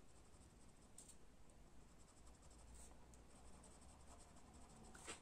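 Faint scratching of a Staedtler Karat Aquarell watercolour pencil colouring on watercolour paper, with a few light ticks.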